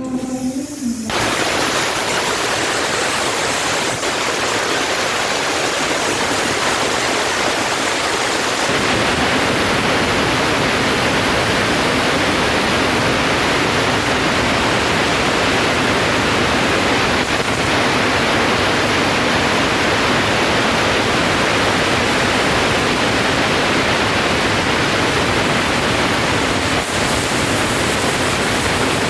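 CNC cutting-table torch hissing loudly and steadily as it cuts, starting abruptly about a second in; a deeper rumble joins the hiss about nine seconds in.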